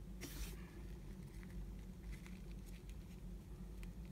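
Faint handling of cardstock and lace on a wooden tabletop: a short papery rustle just after the start, then scattered light taps and rustles, over a low steady hum.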